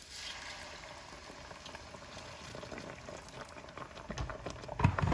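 Hot water being poured into cooking shiro (spiced chickpea-flour stew) to thin it, hissing and bubbling with crackles that build up. There are a couple of loud knocks near the end.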